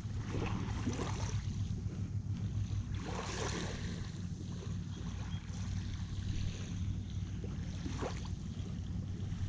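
Wind buffeting the microphone over a steady low hum, with a few brief scuffs of movement.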